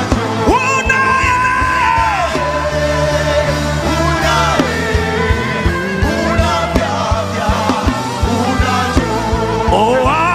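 Live gospel worship music: a band with drums keeping a steady beat and sustained bass and keyboard notes, under a voice singing long held notes that slide up and down.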